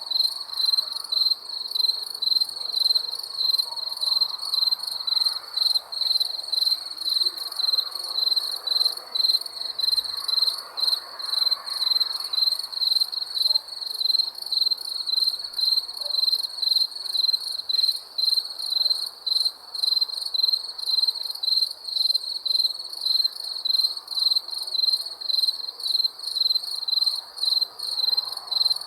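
Crickets chirping in a steady, even rhythm, about two to three high-pitched chirps a second.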